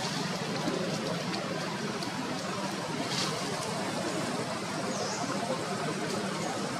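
Steady background noise with a low hum, a few faint ticks and a brief high hiss about three seconds in.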